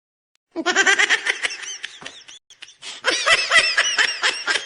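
Laughter sound effect: quick repeated bursts of a person laughing, starting about half a second in, with a short break and a second, louder run of laughing from about three seconds in.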